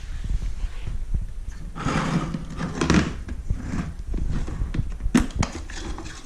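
Plastic parts of an upright vacuum cleaner being handled: a few knocks and rattles, densest about two and three seconds in and again near five seconds, as its dust canister is taken out and checked.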